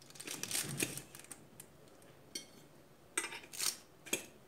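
A metal fork scraping and tapping on a parchment-lined baking tray as baked buns are prised up and lifted off. The scrapes come in an irregular run for the first second or so, then a few separate scrapes and clicks.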